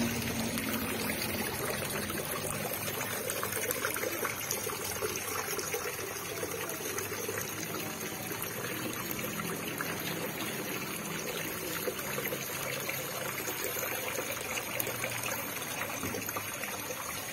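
Water trickling steadily from the spouts of stone cascade fountains, pouring from one stone bowl into the next.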